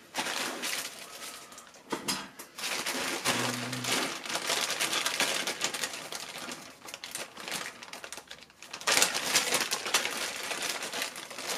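Molded plastic toy playset pieces being handled and unpacked: a continuous rustle with many small clicks and clatters.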